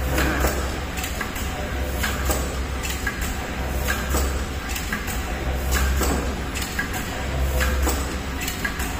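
Tea bag packing machine for filter-paper inner and outer bags running, with repeated mechanical clicks and clacks over a steady low hum.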